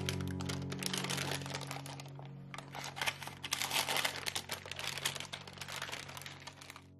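Parchment paper crinkling and rustling as it is handled and peeled away from a round of cookie dough: a dense run of crisp crackles that stops abruptly near the end. Soft background music underneath.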